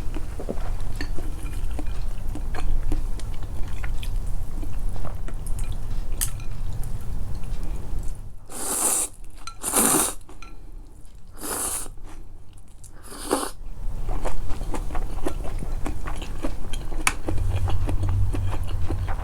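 Close-miked chewing with small wet clicks. In the middle come four separate quick slurps, each about half a second long, typical of somen noodles being sucked up. Then the chewing resumes.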